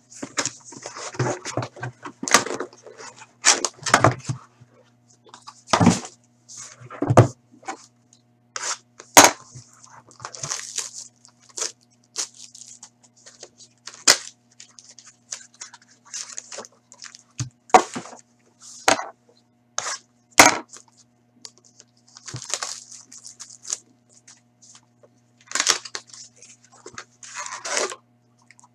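Hands opening a 2013-14 Panini Select hockey card box: rustling and tearing of the cardboard and its wrapping, with many sharp taps and knocks as the box and the card packs are handled and set down. A faint low steady hum lies underneath.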